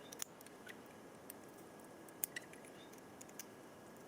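Faint, scattered small clicks and taps of plastic wiring connectors and wires being handled and fitted together, over a low steady hiss.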